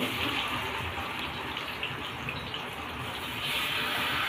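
Hot oil sizzling steadily in woks as peyek (anchovy-and-peanut fritters) and tofu deep-fry, getting louder about three and a half seconds in.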